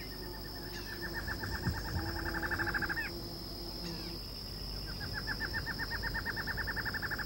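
Barred antshrike singing twice: each song is a fast run of repeated notes that speeds up and ends in a short upward flourish. A steady high insect drone runs underneath.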